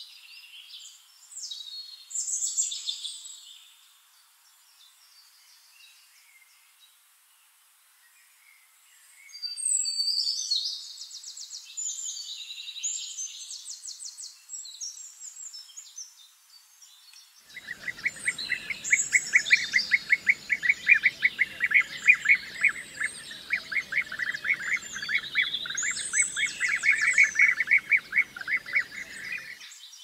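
Small birds chirping and singing in quick high phrases, with a lull of several seconds near the start. Past the middle, a rapid, even pulsing trill comes in under the chirps and stops shortly before the end.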